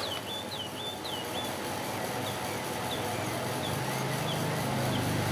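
Desk-fan motor running on its top speed with a steady low hum that grows louder about two-thirds of the way through; the fan is working normally again after its blown thermal fuse was replaced. Small birds chirp in the background, most often in the first second.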